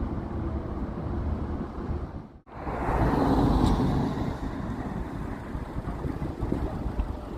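Steady ambient background noise, a low rumble with hiss. It cuts out abruptly about two and a half seconds in and comes back louder and fuller.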